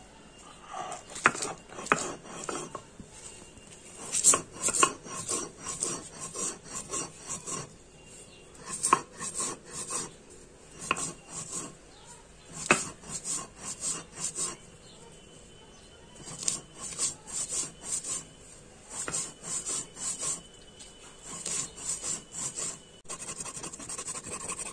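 Stone roller (nora) rubbed back and forth on a flat stone grinding slab (shil), crushing coriander leaves with green and dried red chillies into a paste: rough scraping strokes, about two or three a second, in runs with short pauses, and now and then a sharp knock of stone on stone.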